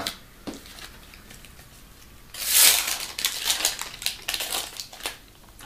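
Crinkling and crackling of a foil sticker-packet wrapper being handled, starting about two seconds in and trailing off into scattered crackles, after a few light clicks of stickers being shuffled.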